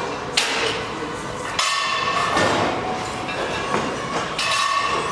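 Sharp metallic clanks of gym equipment, a few over several seconds, over a steady background din.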